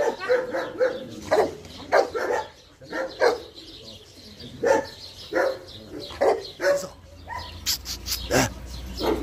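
Dogs barking in a string of short, separate barks, about one every half second to a second, with a short lull partway through.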